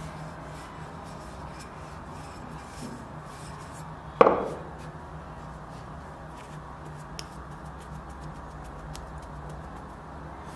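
Hands working bread dough on a floured counter, with one sharp knock about four seconds in that rings briefly as the wooden rolling pin is set down on the worktop.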